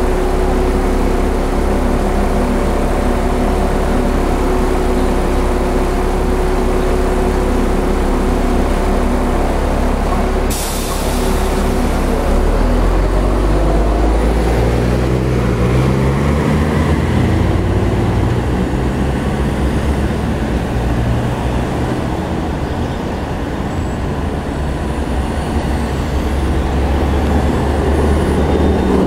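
Hong Kong double-decker tram standing with a steady hum, then a short hiss of air about ten seconds in, and the tram pulls away with its nose-suspended traction motors growling upward in pitch as it accelerates.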